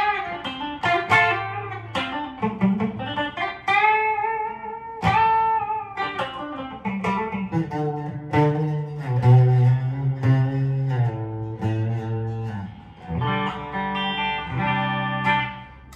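Mattrixx Telecaster-style electric guitar with twin humbuckers played through an amp on a clean tone with a little reverb, picking melodic single notes that ring on, with several notes sounding together as chords near the end.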